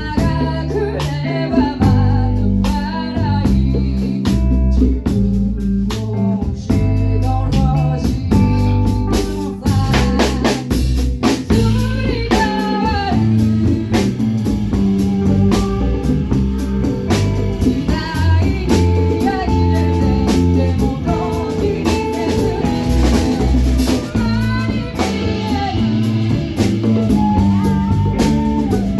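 Band music with no lyrics: guitar, bass and drum kit playing a steady groove, with a melodic lead line bending in pitch over it.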